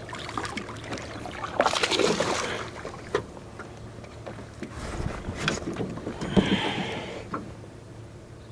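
Knocks, clicks and rustling in a small jon boat, over a steady low hum.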